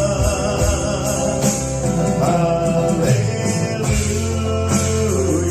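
Live band playing a slow Christian song, with drums, bass and a held, wavering sung vocal line.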